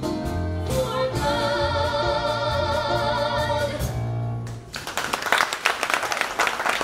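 A sung musical number ends on a long held note with vibrato over the accompaniment, cutting off about four and a half seconds in. The audience then breaks into applause.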